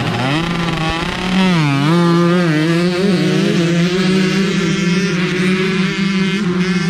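A field of 125 cc two-stroke motocross bikes launching off the starting gate at full throttle. The engine pitch climbs, dips once at a gear change about a second and a half in, then holds high as the bikes pull away.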